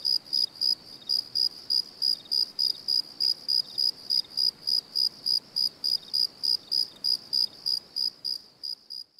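Cricket chirping in a steady, even rhythm, about three short high chirps a second, over a faint hiss; the chirping stops near the end.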